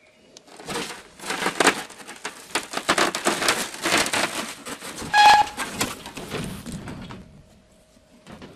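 Rapid, irregular crackling and rustling of stiff plastic sheeting being handled and flexed, with one short squeak about five seconds in.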